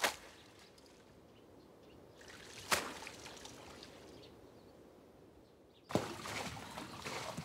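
Salt water splashing onto and dripping from salted napa cabbage as it is rinsed. A short splash at the start, then a faint patter with one sharp tap near the middle, then a sudden, louder, dense dripping and pattering from about six seconds in.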